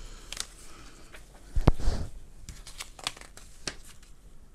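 Paper rustling as a long folded instruction leaflet is unfolded and leafed through by hand, with scattered light crackles and one dull thump about a second and a half in.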